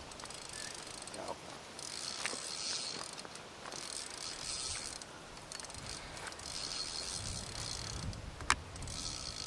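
Fixed-spool reel on a feeder rod being wound in several short spells, a mechanical whirring and ticking, as a hooked fish is played. A single sharp click near the end.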